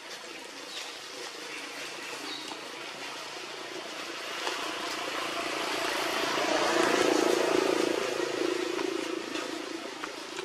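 A motor vehicle passing, its engine growing louder to a peak about seven seconds in and then fading away.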